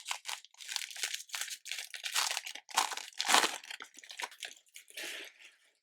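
Plastic foil wrapper of a trading-card jumbo pack being torn open and crinkled by hand, an irregular run of crackles and rips that stops shortly before the end.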